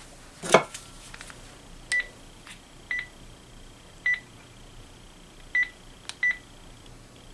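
A sharp click, then five short beeps of a Panasonic DECT cordless phone handset's keypad, one for each button press, spaced roughly a second apart.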